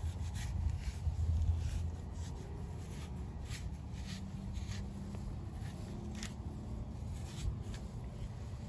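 A knife slicing along a thick prickly pear cactus pad, filleting the green skin away from the white heart: faint crisp scrapes and ticks at irregular intervals, over a low rumble in the first two seconds.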